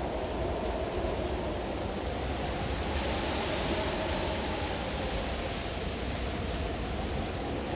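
Howling mountain wind in a blizzard: a wavering howl that drifts up and down in pitch over a low rumble, with a rushing gust swelling in about three seconds in and easing off.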